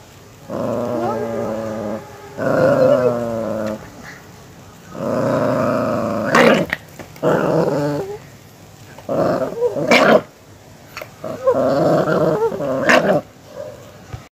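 A miniature pinscher growls in warning in several bouts, each a second or two long. A few short, sharp outbursts come about six, ten and thirteen seconds in.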